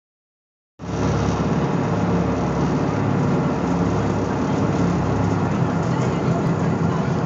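Steady low drone of a boat's engine with rushing wind and water noise, starting just under a second in.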